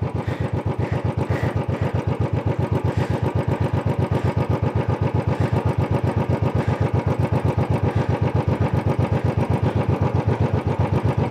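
Royal Enfield single-cylinder motorcycle engine running steadily at low revs, an even, rapid thump-thump of its firing beat.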